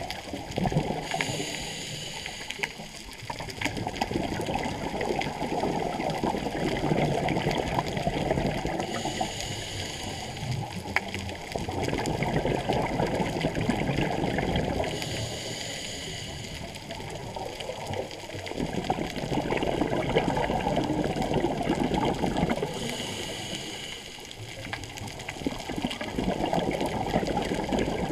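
Scuba breathing through a regulator underwater: four short hissing inhalations, each followed by several seconds of bubbling exhaled air, in a slow, even cycle.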